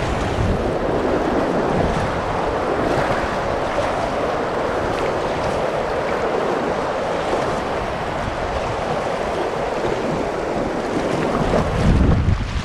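River water rushing and splashing through a shallow rapid around a moving inflatable kayak, a steady noise with a brief low rumble near the end.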